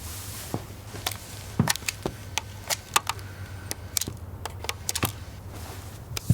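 Irregular light clicks and taps, about a dozen of them, over a low steady hum.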